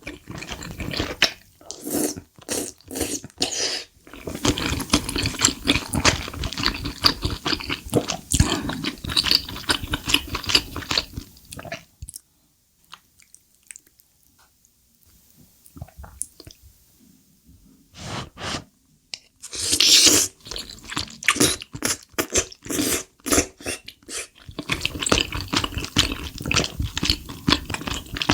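Close-miked chewing of chewy tteokbokki rice cakes: dense wet smacking and squishing mouth sounds, which die down to a quiet pause partway through and then resume, with one brief louder hiss-like burst.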